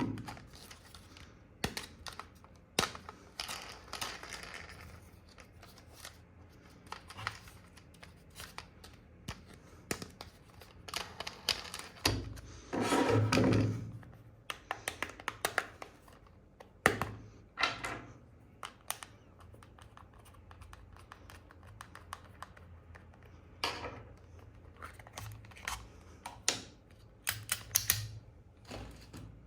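Toy and packaging being handled: scattered sharp clicks and taps of plastic, with a louder stretch of rustling about twelve to fourteen seconds in.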